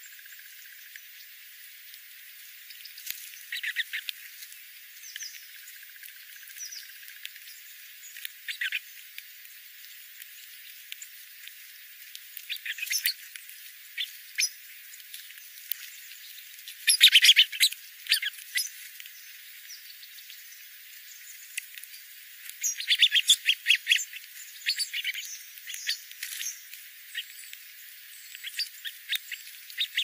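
Golden-crowned sparrows and a spotted towhee feeding on seed-strewn gravel: scattered clusters of short, sharp chips and pecking clicks, the loudest flurry about halfway through and another a few seconds later.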